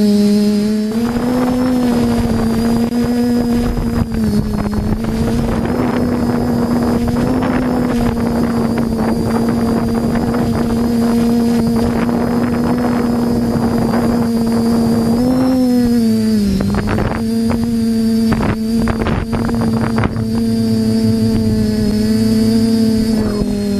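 Quadcopter motors and propellers humming steadily, with wind rush on the microphone. The pitch rises briefly about a second in and bends up and down again around 15 seconds in as the throttle changes.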